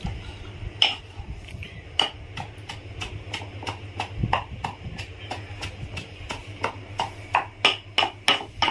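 Irregular sharp taps and clinks of a knife and stainless-steel plates and bowls while green chillies are slit open on a steel plate, coming thicker near the end.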